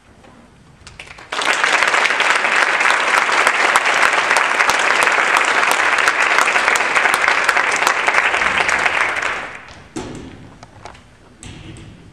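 Audience applauding: the clapping starts suddenly about a second in, holds steady for about eight seconds and then dies away, followed by a few faint knocks.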